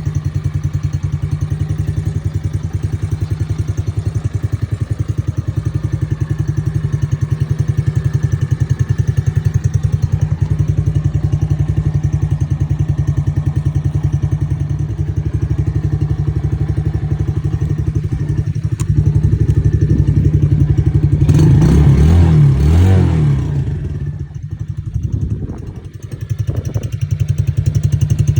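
Engine of a 125 cc ATV running steadily at a low idle. About three-quarters of the way through it is revved up and back down, then nearly dies for a moment before picking back up to idle.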